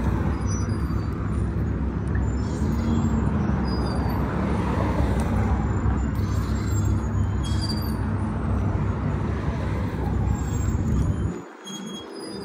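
Outdoor street ambience: a steady low rumble of road traffic on the coastal road, which drops away for about a second near the end.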